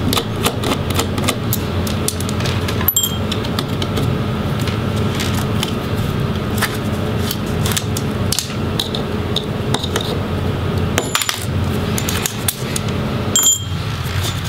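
A small Phillips screwdriver clicks as a screw is backed out of a laptop's metal chassis. Light clicks and rattles follow as the DC power jack and its cable are lifted out, all over a steady low hum.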